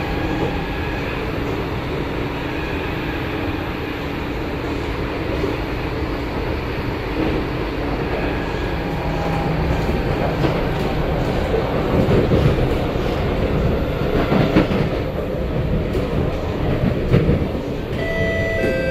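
Kawasaki Nippon Sharyo C751B metro train heard from inside the carriage while running at speed: a steady rumble of wheels on the track with a faint whine. From about 12 to 17 seconds in there is louder clattering and knocking over the rails, and near the end a fresh motor whine sets in.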